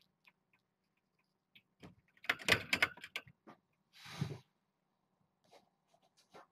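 Kittens playing among toys and a carpeted cat tower: a quick flurry of clicks and rattles about two seconds in, then a short muffled thump with a rustle about a second later.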